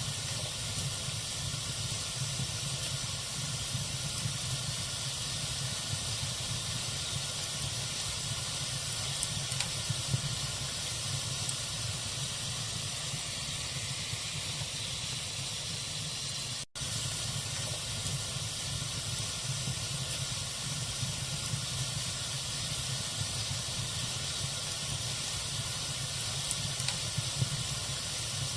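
Wood fire burning in a fireplace: a steady hiss over a low rumble, with a few faint crackles and pops. The sound drops out for an instant a little past halfway.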